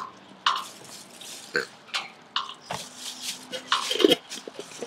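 A person burping, with short mouth and throat sounds, just after drinking pickle juice from a jar. The loudest burp comes about four seconds in.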